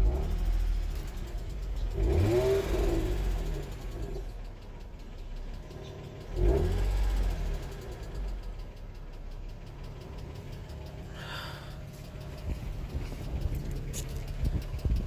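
Infiniti G35's 3.5-litre V6 idling and blipped twice, the revs rising and falling back each time. The engine has a knocking noise that the owner cannot place, blamed by some on the lifters and by others on the spark plugs.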